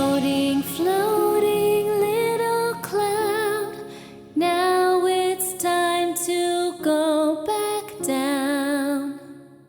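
Children's song with a female singing voice holding notes with vibrato over a backing track, fading out near the end.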